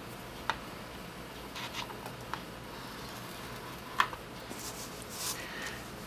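Cardstock being scored with a bone folder on a plastic Scor-Buddy scoring board: a few light clicks and taps of the tool, the sharpest about four seconds in, and two short scrapes of the folder or card sliding across the board.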